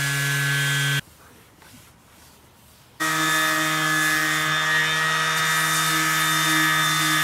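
Electric orbital sheet sander running against stained wood, a steady buzzing hum; it breaks off about a second in and starts again around three seconds in at a slightly higher pitch. Light sanding between coats of stain on wooden cabinet doors and drawers.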